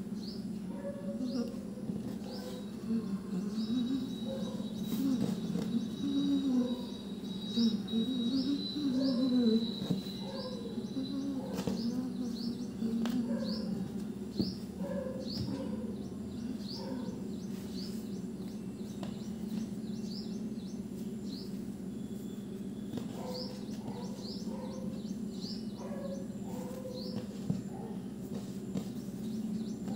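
Background ambience: a small bird chirping about once a second over a steady low hum.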